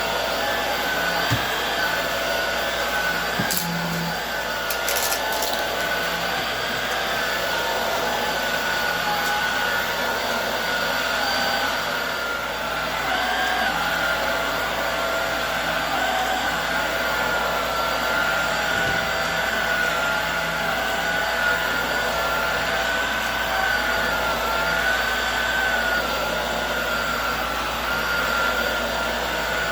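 Hoover Air Steerable upright vacuum cleaner running on a rug: a steady rush of suction with a high motor whine that wavers slightly in pitch. A few brief clicks sound a few seconds in.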